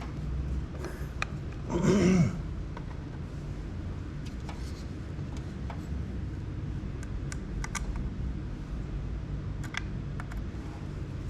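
Scattered light clicks and taps of hands handling small parts over a steady low hum, with one short louder noise about two seconds in.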